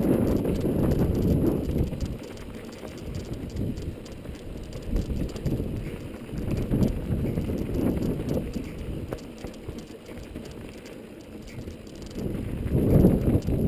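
YT Capra mountain bike rolling over rough trail: tyres on dirt and rock with a busy rattle of chain and frame, under wind buffeting the microphone. It is loudest at the start and swells again near the end.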